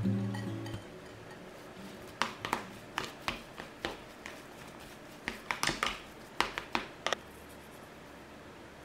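Metal fork clinking and scraping against the side of a mixing bowl while stirring a soft mash of potato, egg, sausage and cucumber. It comes as a run of irregular clicks from about two seconds in until about seven seconds in.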